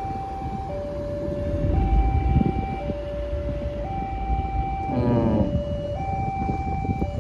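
Railway level-crossing warning siren sounding a two-tone hi-lo call, switching between a higher and a lower pitch about once a second, over the low rumble of traffic and a departing diesel railcar. About five seconds in, a brief sound falls quickly in pitch.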